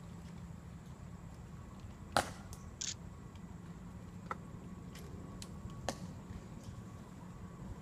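A few sharp clicks, about five, the loudest about two seconds in, over a steady low hum.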